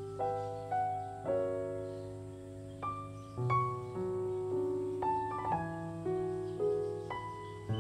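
Background piano music: gentle, slow notes and chords struck about once or twice a second, each left to ring.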